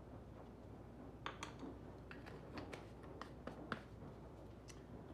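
Light clicks and taps of spice containers being handled and shaken over a bowl of flour: about a dozen short, sharp ticks starting about a second in, irregularly spaced.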